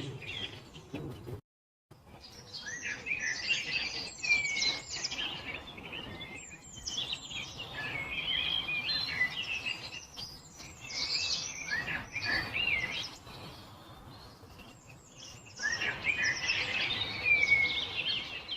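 Songbirds singing, a dense run of overlapping chirps and trills. The sound cuts out completely for about half a second near the start, then the song resumes.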